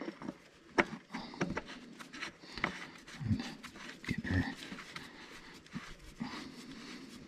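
Light metallic clicks and scrapes as the steel pilot filter housing of a John Deere 35G excavator is offered up and started onto the threads of its filter head, with a couple of short low grunts about three and four seconds in.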